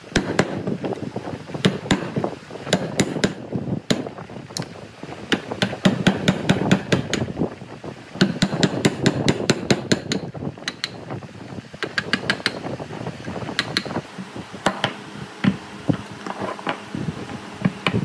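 Hand tools working on wood: an irregular run of sharp knocks and clicks, at times several a second, over a rough clattering scrape.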